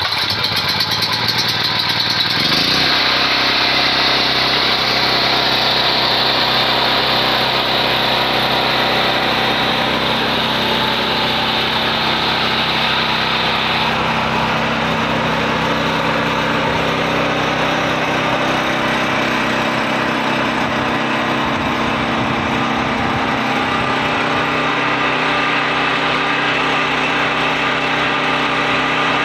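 Predator 4000 portable generator's small single-cylinder gasoline engine running steadily just after being pull-started, its speed settling in the first couple of seconds.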